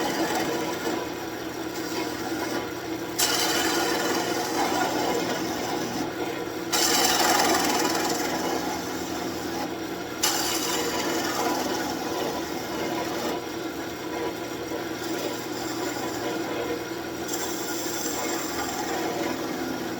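Wood lathe running with a birch workpiece spinning against a hand-held turning tool: a steady motor hum under a scraping hiss of cutting. The cutting gets louder sharply about 3, 7 and 10 seconds in as the tool is pressed into the wood.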